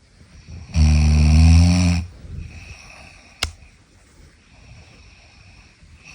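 One loud snore about a second in, lasting just over a second, followed by quieter breathing and a single sharp click.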